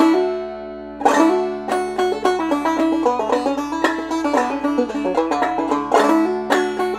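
Tubaphone open-back banjo played clawhammer style: a ringing strum at the start and another about a second in, then a quick run of picked melody notes over a steady droning note.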